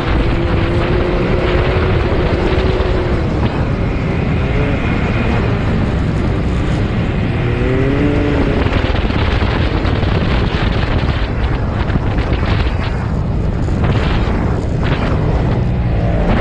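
Side-by-side UTV engine running hard at high revs, its pitch dipping and rising a few times with the throttle. Underneath is a constant loud rumble of wind and driving noise.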